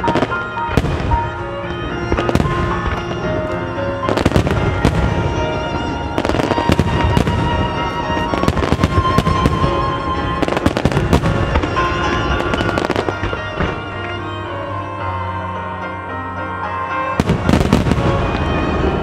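Starmine fireworks barrage: many aerial shell bursts and crackles in quick succession over loud music played with the show, with a dense cluster of bursts near the end.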